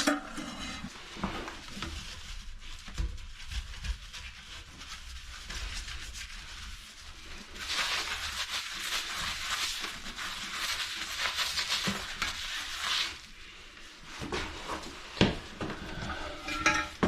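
Old toilet flush valve being worked loose and pulled out of a porcelain tank: scattered knocks and clicks of plastic against porcelain, with several seconds of steady scraping in the middle.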